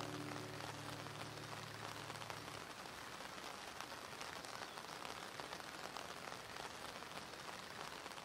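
Steady rain falling, a dense even hiss of drops, slowly fading toward the end. A held low chord from the closing music dies away about two and a half seconds in.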